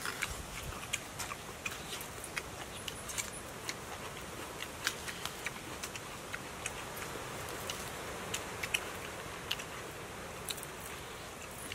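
Scattered small clicks and crackles at an irregular pace: eating and handling fish by hand on banana leaves, over a steady faint hiss.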